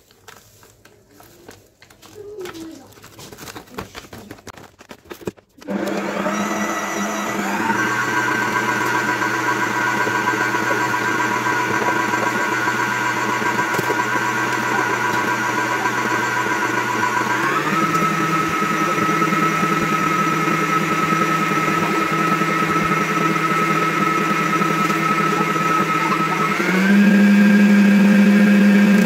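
A wire whisk clicks and scrapes against a stainless steel bowl for the first few seconds. Then an electric hand mixer switches on and runs steadily, beating the mixture. Its pitch steps up twice as the speed is turned up, once a little past halfway and again near the end, and it is louder after the second step.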